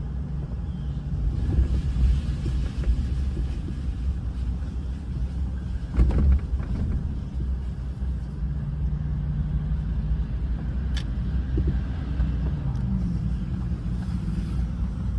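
Car driving, with a steady low rumble from the road and engine and a sharp louder knock about six seconds in, like a bump.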